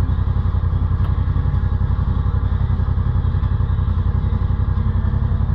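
ATV engine running at a steady speed, a low, fast, even pulse that holds throughout.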